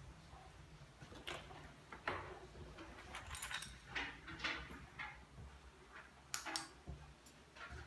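A string of irregular light clicks and knocks, loudest a little after six seconds in, over a faint low hum.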